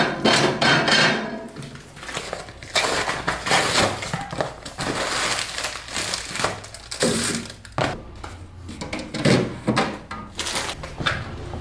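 Objects being handled: irregular clattering, knocking and rustling.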